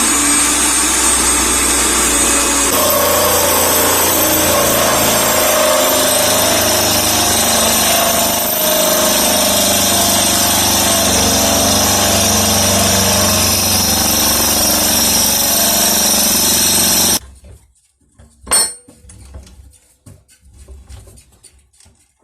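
Electric drill running in a homemade drill stand, its sound changing about three seconds in, then stopping suddenly. A single sharp click follows, then faint handling noises.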